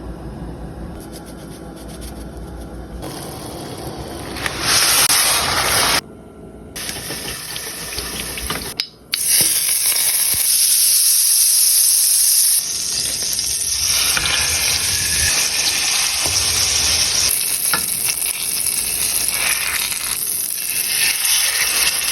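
Food sizzling in oil and butter in a hot frying pan, a steady hiss that grows louder about four and a half seconds in, with abrupt breaks about six and nine seconds in.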